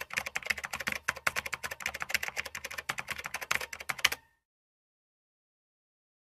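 Typing sound effect: a fast run of keyboard key clicks as title text is typed out letter by letter, stopping suddenly about four seconds in.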